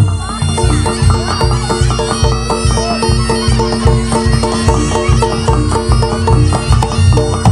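Reog Ponorogo accompaniment music: a reedy shawm, the slompret, holds a steady tone over quick repeated pitched gong notes and heavy low drum beats.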